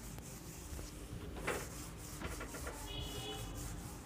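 Whiteboard duster rubbing across a marker board, wiping off writing, faint, with a few soft scuffs and a short high squeak about three seconds in.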